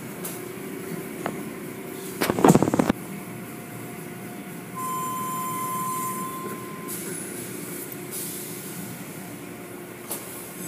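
Automatic tunnel car wash running: a steady mechanical rumble with water spray as cloth curtains and spinning cloth brushes scrub an SUV. A loud rattling burst comes about two seconds in, and a steady high-pitched tone sounds for about two seconds midway.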